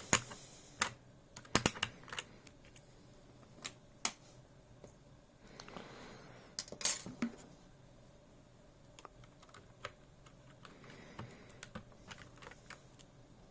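Irregular sharp plastic clicks and taps as an MX-style mechanical keyboard switch is pushed and worked into its slot in a keyboard. The clicks are spaced well apart, the loudest a quick pair about a second and a half in and another about seven seconds in.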